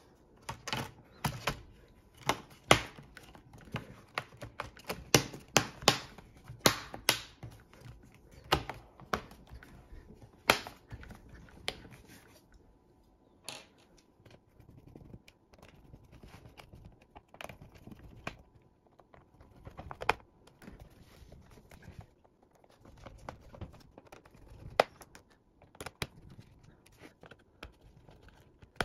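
Hard plastic clicks and snaps as the bottom cover of a Lenovo ThinkPad X240 laptop is pressed onto its chassis: a quick run of sharp clicks through the first twelve seconds, then scattered single clicks and taps as the closed laptop is handled.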